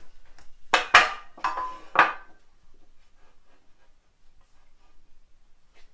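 Support blocks being thrown into place on a chuck-mounting track frame, knocking and clattering: a handful of loud knocks in the first two seconds or so, then only faint small clicks and handling noises.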